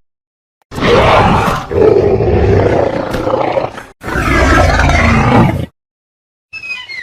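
Movie dinosaur roar sound effect: two long, loud, harsh roars, the first about three seconds long and the second under two, with a brief gap between them. Near the end, a few short, high, sliding chirps begin.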